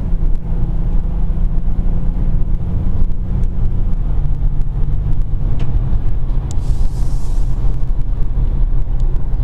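Inside the cabin of a 2019 Dodge Charger GT under way: its 3.6-litre V6 and road noise hum steadily, the engine note stepping down about four seconds in. A short hiss comes through about seven seconds in.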